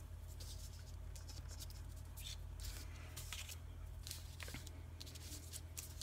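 Faint rustling and brushing of a card and cotton baker's twine being handled and wrapped, a few soft scrapes scattered through, over a steady low hum.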